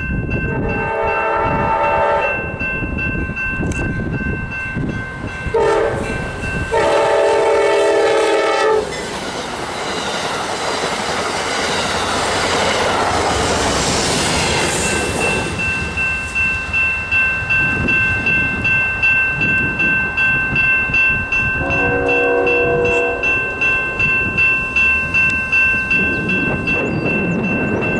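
Amtrak P42DC diesel locomotive sounding its horn in several blasts, one of them short, as it approaches, then rushing past close by. The passenger cars follow with a steady rhythmic clickety-clack of wheels over the rail joints, and another horn blast comes about three quarters of the way in. Two steady ringing tones, typical of a grade-crossing bell, run under it all.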